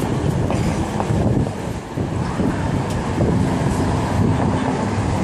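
City street traffic running steadily, with wind rumbling on the microphone; a vehicle engine's hum stands out briefly past the middle.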